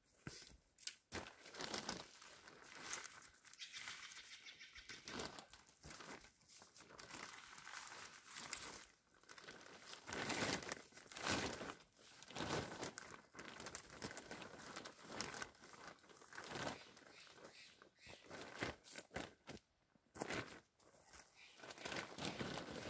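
Heavy black plastic drum liner bag crinkling and rustling as it is pulled and slid over a pair of wooden poles. The crackling comes in irregular handfuls and is loudest about ten to twelve seconds in.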